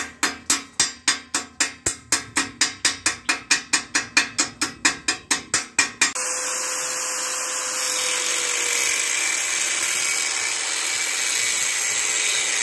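A hammer beating on a welded steel joint with quick, even blows, about four a second, for some six seconds. Then an angle grinder runs steadily, cutting through thin metal tubing.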